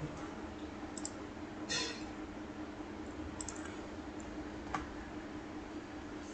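A few scattered clicks of a computer mouse and keys being worked, one of them a quick double click, over a faint steady hum.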